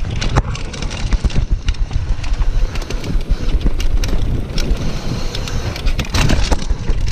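Mountain bike riding fast down a dirt trail: a steady rumble of tyres over dirt and gravel and wind buffeting the camera microphone, with many sharp clicks and rattles from the bike over bumps.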